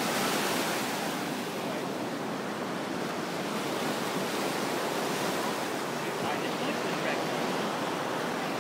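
Surf washing on the shore in a steady, even rush.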